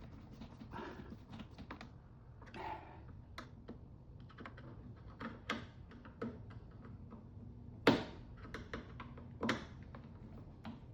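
Light clicks and taps of a screwdriver and plastic tail-light parts being handled while a tail-light lens is screwed back in place, with a sharper knock about eight seconds in and another a second and a half later.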